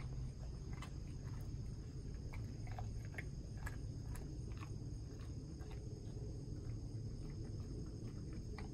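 Golden retriever crunching Wheat Thins crackers picked up off concrete: irregular crisp crunches and clicks.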